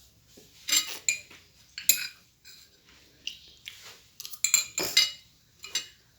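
Cutlery clinking and scraping against a plate during a meal: a run of irregular sharp clinks, the loudest ones bunched together about four and a half to five seconds in.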